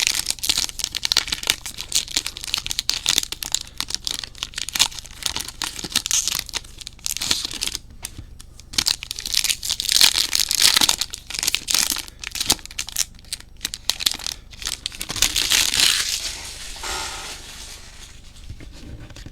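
Trading-card pack wrappers from 2021 Bowman Chrome Mojo packs being crinkled and torn open, in repeated bursts of crackling with quieter gaps, dying down near the end.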